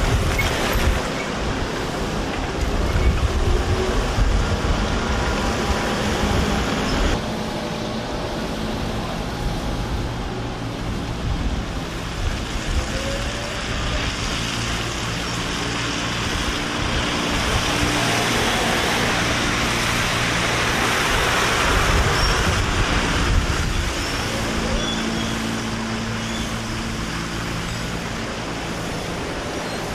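Trolleybuses passing and pulling away on a slushy city street: tyre swish and the hum of their electric traction motors, over general traffic noise.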